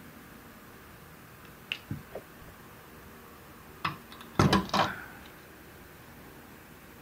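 Light clicks and small knocks from the soldering iron and the wiring being handled at the bridge rectifier inside an opened battery charger, a few scattered at first and the loudest cluster about four and a half seconds in, over a steady faint hiss.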